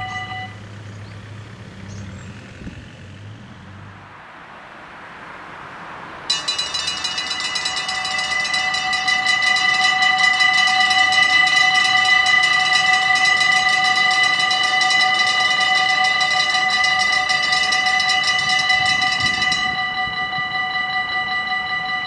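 Dutch level-crossing warning bells start ringing suddenly about six seconds in, a loud, steady, rapid electronic ringing while the red lights flash and the half-barriers lower. Near the end the highest part of the ringing drops out and the bells carry on a little quieter.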